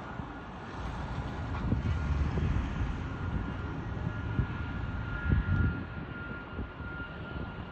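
Distant jet engine noise from an Airbus A321neo's Pratt & Whitney geared turbofans as the airliner rolls out on the runway after touchdown: a steady high whine over a low rumble that swells about two seconds in and again about five seconds in.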